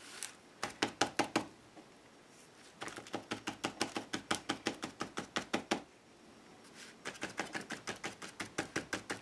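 A stipple brush dabbing thick rust effect paste onto an embossed card, a fast run of light taps about seven a second. The tapping comes in three runs with short pauses between.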